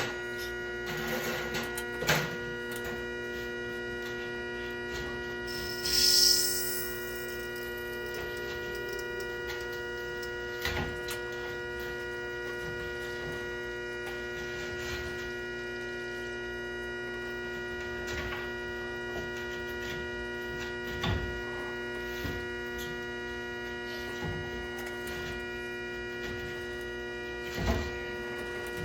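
Steady electrical hum made of several fixed tones, with a few scattered knocks and a short hiss about six seconds in.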